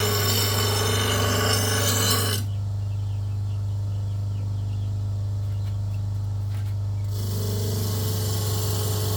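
Electric power tool running with a steady hum, working rusted metal. Its gritty abrasive noise is strong for the first two seconds or so, drops away through the middle, and comes back more faintly near the end.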